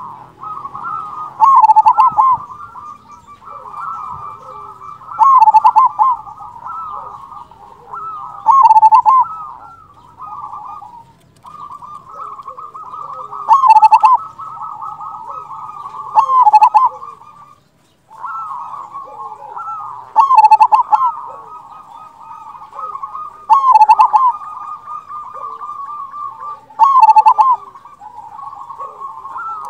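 Zebra dove (perkutut) cooing. A rolling, trilled coo runs almost without a break, and a loud, deep 'kung' coo comes about every three to four seconds, eight in all, with one short pause a little past halfway.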